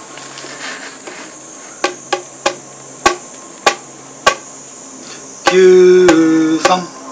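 A series of about six sharp taps on the thick viewing glass of an orangutan enclosure, about half a second apart. Near the end comes the loudest sound, a close man's voice held on a steady note that drops once to a second note.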